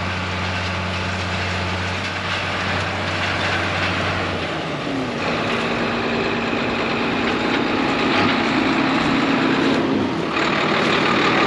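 Buhler Versatile 2210 tractor's diesel engine running steadily as it pulls a harrow packer, its pitch shifting about halfway through and again near the end.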